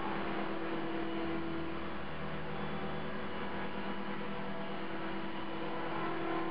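CopterX 450 SE V2 electric RC helicopter running, with a steady buzz and several held tones from its motor and rotor head. The owner blames the loud buzzing after a crash on bent main blades that are out of track, and fears a bent blade holder or feathering shaft.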